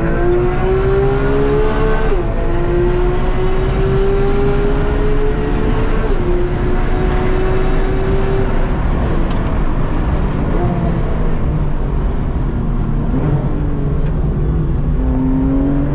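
Porsche 991 GT3's naturally aspirated flat-six heard from inside the cabin at full throttle on track. It climbs in pitch through the gears, with quick upshifts about two and six seconds in. Around ten seconds in it drops off under braking, with downshift blips, then pulls hard and rises again near the end.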